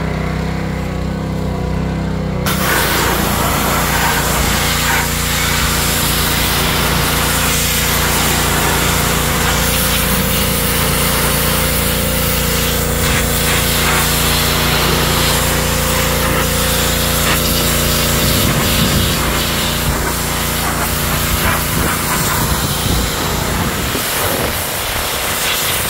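Pressure washer running steadily. About two and a half seconds in its jet starts with a sudden loud hiss, spraying against the car's body panels and wheel to blast off years of built-up grime.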